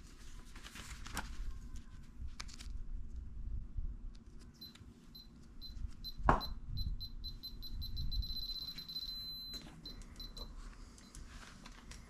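Digital torque adapter beeping as a head bolt on an SR20DET is tightened toward 58 ft-lb: spaced beeps that come faster as the reading nears target, then a steady tone for about a second once it is reached. Ratchet clicks and a sharp knock about six seconds in.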